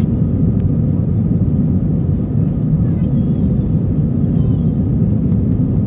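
Jet airliner taxiing, its engines giving a steady low rumble with a faint constant hum over it.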